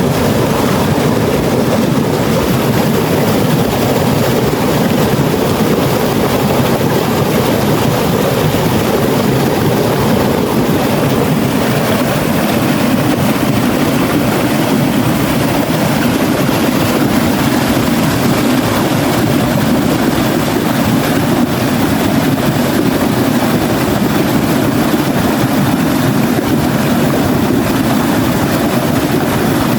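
Fast-flowing stream of water rushing steadily, a loud, rumbling roar.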